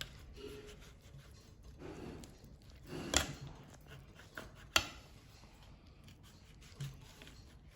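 Kitchen handling sounds as a knife and the sandwich are readied for slicing: two sharp knocks on the counter, about three seconds in and again about five seconds in, with faint rubbing and shuffling between.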